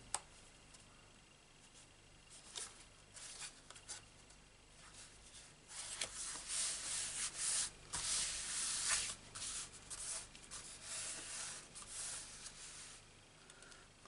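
Hands rubbing and pressing a glued cardstock panel down onto a card base: a run of dry papery swishing strokes, thickest in the middle of the stretch.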